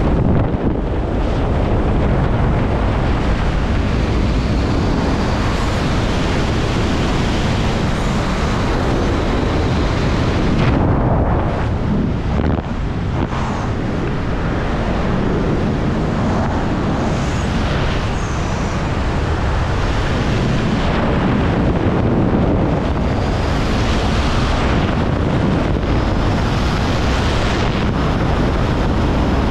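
Loud, steady wind buffeting the microphone, with a few brief dips around the middle.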